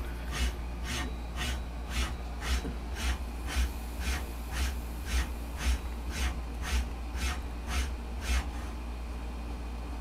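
Teknic ClearPath SDHP servo motor running a repeated motion test: about sixteen short rushing strokes, roughly two a second, over a steady low hum. The strokes stop about a second and a half before the end.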